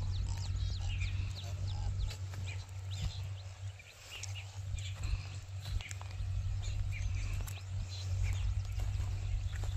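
Birds chirping, many short high chirps, over a steady low rumble.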